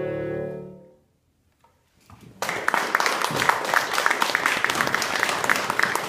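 Wind quintet holding its final chord, which dies away about a second in. After a brief silence, audience applause starts about two and a half seconds in and keeps going.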